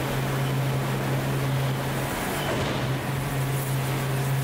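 Forge furnace running: a steady roar with a constant low hum underneath and no hammer blows.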